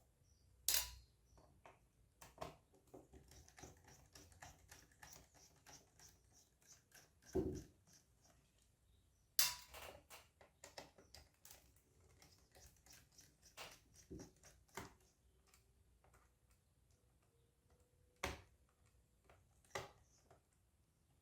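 Small scattered clicks and taps of a screwdriver working screws out of a laptop's plastic bottom cover, with a few louder knocks of tool or parts against the case, one near the start, one dull thump about a third of the way in, and others in the middle and near the end.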